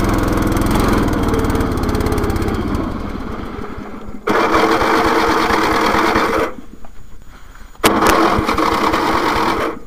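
Riding lawn mower's small engine running. It fades after about three seconds and comes back abruptly about four seconds in. Near seven seconds it drops off for a second and a half, then picks up again after a sharp click.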